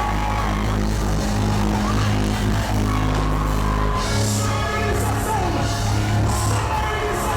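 Live gospel worship band music: sustained chords over a steady bass line, with bright high splashes joining from about four seconds in.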